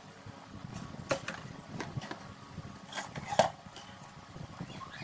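Scattered light clicks and knocks from a stand fan's plastic and metal parts as it is handled and set down in place. The loudest knock comes about three and a half seconds in.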